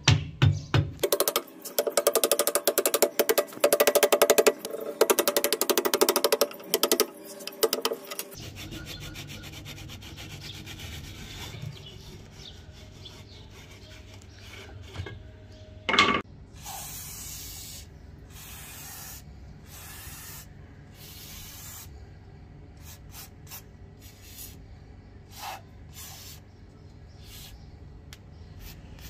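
Rusty metal gun parts being scraped and rubbed in quick strokes for the first several seconds, then handled with scattered light clicks, with one louder knock about 16 seconds in.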